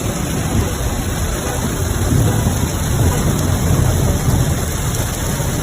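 Heavy hail and rain pelting down during a severe storm: a dense, steady noise with a strong low rumble.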